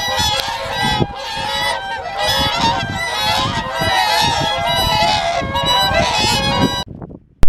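A large flock of whooper swans calling together, a dense chorus of overlapping trumpeting honks that cuts off suddenly near the end.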